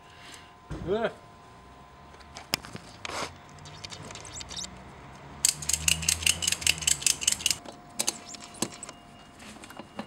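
A ratchet strap being tightened: its buckle's pawl clicks quickly, about six times a second for some two seconds, starting about five and a half seconds in. A few handling knocks come before the clicks.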